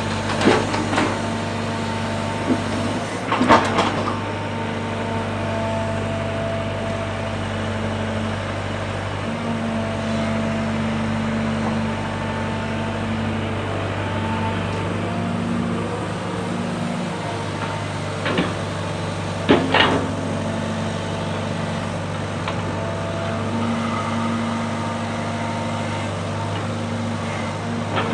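Excavator diesel engine running steadily, its pitch shifting as the hydraulics take load while it moves soil. A few sharp knocks stand out, the loudest near the start and around the middle.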